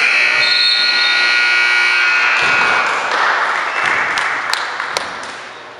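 Gym scoreboard horn sounding one steady tone for about two and a half seconds as the game clock hits zero, signalling the end of the quarter. Then crowd noise with a few sharp claps, fading toward the end.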